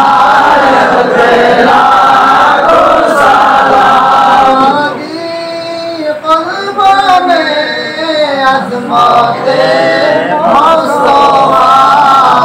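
A group of men chanting a devotional Islamic chant together, as at a milad or zikr gathering. It is softer in the middle and swells again near the end.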